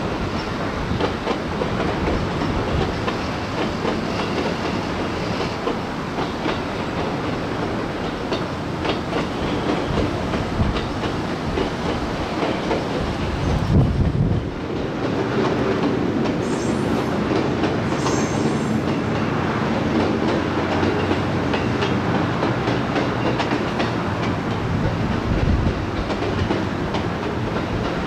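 A train running on rails, its wheels clacking over the rail joints, with two short high squeals from the wheels about halfway through.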